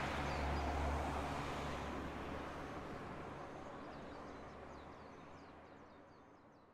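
Outdoor ambience over a mountain valley: a steady low rumble and rushing noise with a few faint bird chirps, fading out to silence.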